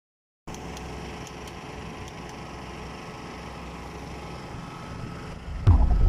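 Putzmeister M 42-4 truck-mounted concrete pump running steadily with its engine on. A few faint clicks come early. About five and a half seconds in, a sudden loud low boom cuts in.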